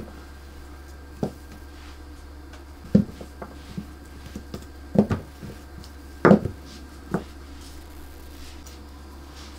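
Hands pressing and patting a top sheet down over sugar paste on a silicone baking mat, giving irregular soft thumps and rustles as the sheet is smoothed and then peeled back, the loudest about six seconds in. A steady low hum runs underneath.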